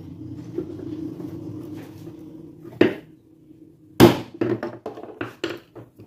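Hammer tapping a screwdriver against an electric fan motor's end-bell casting, staking the new sleeve bushing so it cannot slip out. One sharp strike about three seconds in, a louder one a second later, then a quick run of lighter taps. A steady low hum runs under the first half.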